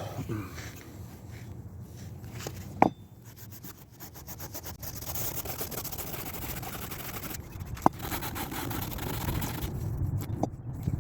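Steady abrasive scraping and rubbing on the metal of an antique hatchet being cleaned up, with two sharp clicks, about three and eight seconds in.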